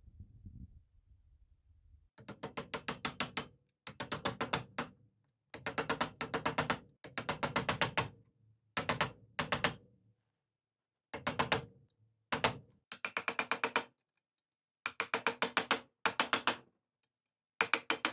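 Freshly reassembled Handyman (Hi-Lift) jack's ratchet mechanism clicking in quick runs of about ten clicks a second, each run lasting about a second with short pauses between, as its spring-loaded climbing pins catch along the steel bar.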